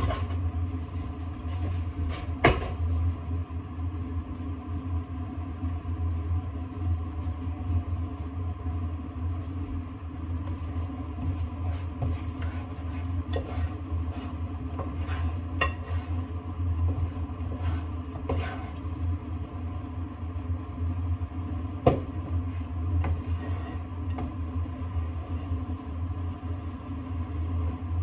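A steady low mechanical hum, with a spatula knocking and scraping now and then against a small metal saucepan as egg is stirred in it. The sharpest knocks come about two seconds in and again past the twenty-second mark.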